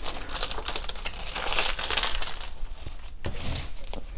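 Plastic film crinkling and crackling as a diamond painting canvas with its sticky protective cover is handled and folded, in irregular bursts that ease briefly twice in the second half.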